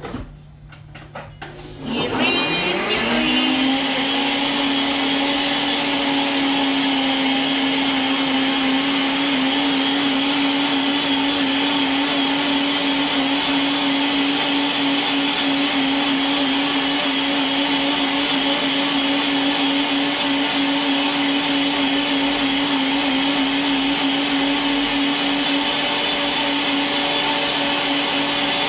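Countertop blender motor starting about two seconds in, spinning up and then running at a steady whir as it grinds a salsa of dried chiles, roasted tomatoes, garlic and water.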